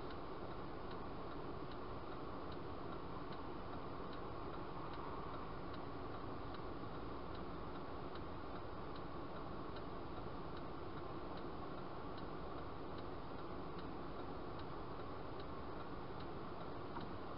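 A car's turn signal ticking steadily, a little more than once a second, over the low steady hum of the engine idling while the car stands still.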